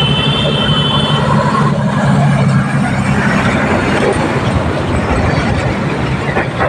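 Road traffic passing close by. A large truck's engine rumbles past first, then a smaller truck and cars go by with tyre noise. A brief high-pitched tone sounds in the first second.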